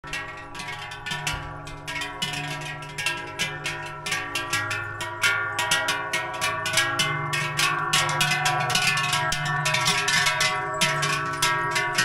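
Many cowbells on a herd of cattle clanging continuously and irregularly as the cows walk past. The overlapping strokes blend into a sustained ringing chord that grows a little louder as the herd comes closer.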